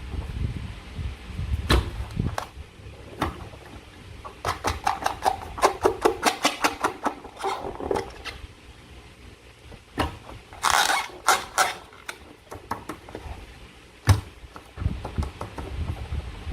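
Slime being squished and stretched by hand: sticky clicks and wet pops, with a quick run of them in the middle and a short hissing burst about two-thirds of the way in.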